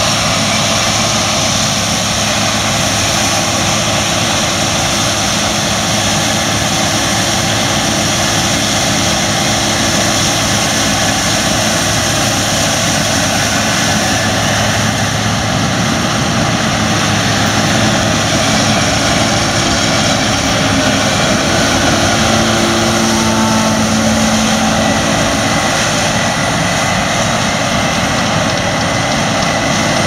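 Claas Lexion combine harvester running steadily under load while harvesting rapeseed: a constant, loud machine drone.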